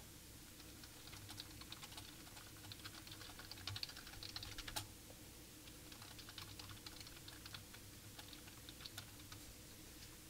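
Faint, irregular light clicks and taps over a low steady hum, busiest in the first half, with one sharper click about five seconds in.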